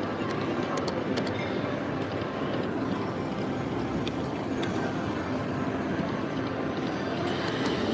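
Casino floor din: a steady wash of slot machine sounds and background crowd noise, with a few short high clicks.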